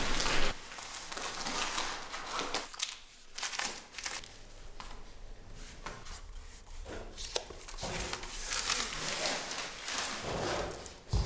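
Paper backing film being peeled off and crinkled from self-adhesive vinyl floor planks, in irregular bursts of rustling that grow louder near the end. A low thump comes just before the end.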